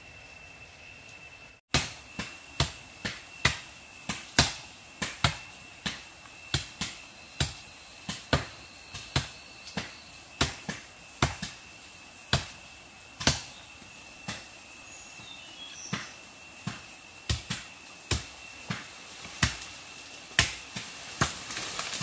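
Repeated sharp knocks, irregular at roughly one to two a second, beginning about a second and a half in. Under them runs a steady high-pitched whine.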